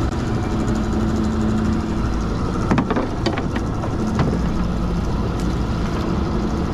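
A fishing boat's motor running steadily with a low hum, and a short run of knocks and rattles about three seconds in.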